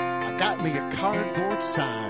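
Steel-string acoustic guitar strummed, chords ringing on between strokes.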